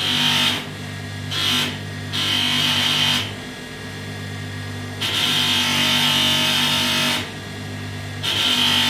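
Bench grinder fitted with polishing wheels running with a steady motor hum, and a rushing hiss each time a brass musket fitting is pressed against the compound-charged wheel for coarse polishing. The wheel is pressed five times, the longest for about two seconds, just past the middle.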